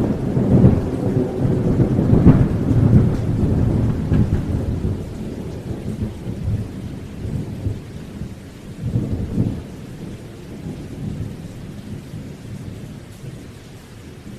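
Thunder rumbling over rain hiss, with rolling peals in the first few seconds and another swell about nine seconds in, dying away and then cutting off suddenly.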